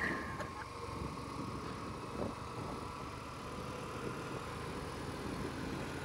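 Yamaha MT-15 single-cylinder motorcycle engine idling faintly and steadily while stopped.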